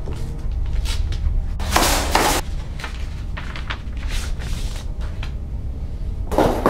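Paper rustling in several short bursts as a manila envelope is opened and a photograph slid out, the loudest about two seconds in, over a steady low hum. Near the end a fast run of rapid noises begins.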